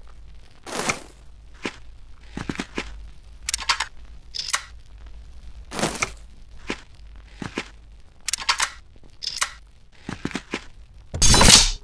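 A string of short, sharp sound effects, about one or two a second and irregular. They go with stop-motion LEGO minifigure head and helmet swaps, and the loudest comes near the end.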